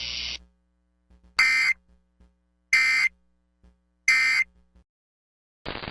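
Three short Emergency Alert System SAME data bursts, harsh digital screeches about a second and a half apart: the end-of-message code that closes an EAS alert. A steady hiss cuts off just before them, and noisy broadcast audio starts near the end.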